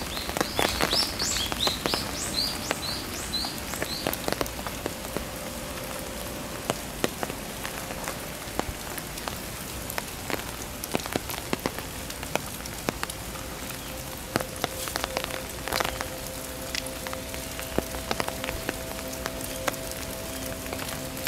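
Rain falling steadily on wet stone paving and leaf litter, with large drops splashing close by.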